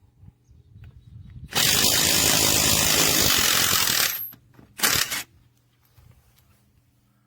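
AOBEN 21V cordless impact wrench run on the trigger for nearly three seconds, then given a short burst of about half a second a moment later.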